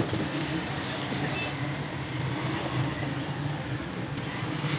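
Steady low rumble of background road traffic, with faint voices.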